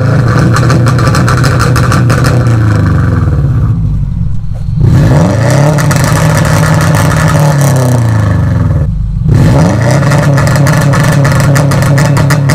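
A Subaru 2.5-litre flat-four engine revved up three times and held against the Bee R rev limiter: each time the pitch rises, sits flat at the cut-off with a rapid crackle from the ignition cut, then falls back. The third rev is still being held near the end.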